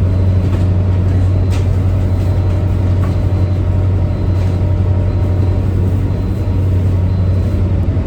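Towboat's diesel machinery giving a steady, loud low drone, with a few faint ticks over it.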